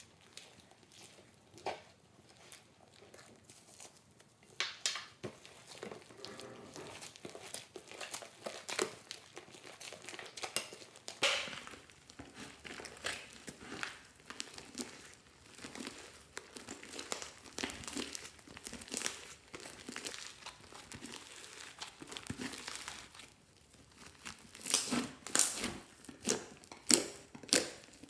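Slime being handled, giving a run of sticky crackles and clicks, with a cluster of louder clicks near the end.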